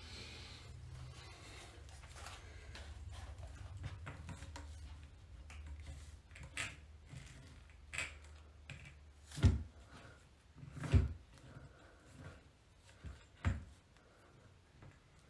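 Dull knocks and thumps from gym equipment being handled during a cable workout, spread through the second half, the two loudest a second and a half apart. A low hum underneath stops about two-thirds through.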